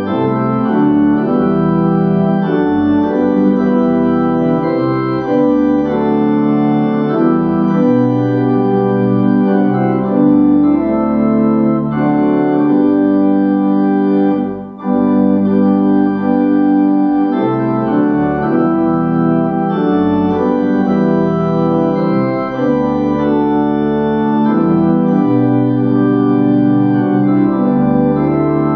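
Organ playing a hymn tune in sustained chords that change every second or so, with a brief break between phrases about fifteen seconds in.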